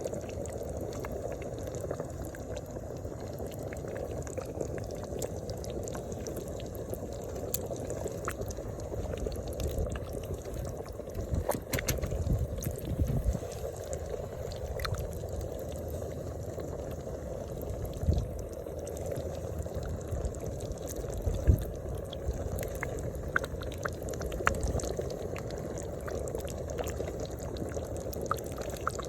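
Pork and baby shrimp cooking in a pan, the liquid bubbling steadily with scattered small pops. A few louder low knocks come midway.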